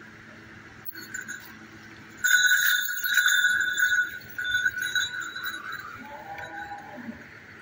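Small bells on a calf's neck chain jingling as the calf moves, an irregular jangle that starts suddenly a little over two seconds in and dies away about three seconds later.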